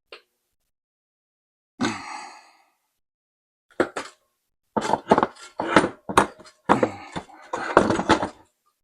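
Metal clunks, knocks and scraping as a dirt bike engine is wrestled out of its frame. There is a short scrape about two seconds in, and a close run of knocks and scrapes through the second half.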